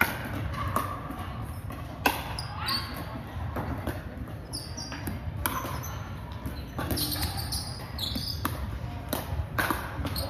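Pickleball paddles striking a plastic ball during a rally: sharp pops every second or two that ring around a large gym.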